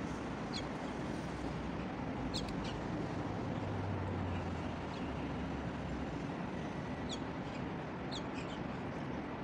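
Steady outdoor city hum of road traffic, with short high bird chirps now and then: a couple close together about two seconds in and a few more near the end.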